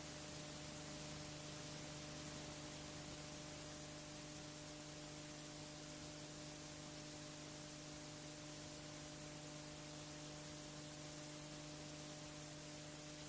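Steady hiss with a low electrical hum and no other sound: the background noise of a soundtrack that has gone silent.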